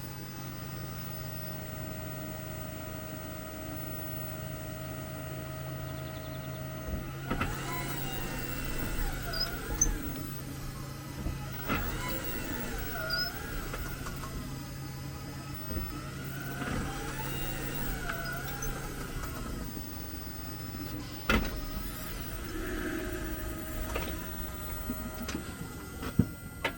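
Squeaking from a 2022 Jeep 4xe: wavering squeals that bend up and down in pitch, coming several times after a steady hum, with a few sharp clicks or knocks among them. It is the noise the owner gets when reversing and braking or shifting into Park, which a dealer brake cleaning did not cure.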